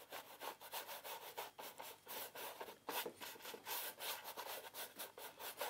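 Paintbrush strokes on canvas: a faint, irregular run of short scratchy rubs as paint is brushed and blended across the surface.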